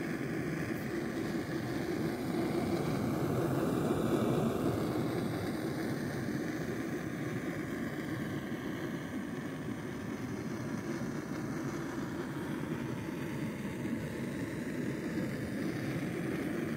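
Backpacking gas canister stove burning steadily under a pot of water, a low, even rushing noise.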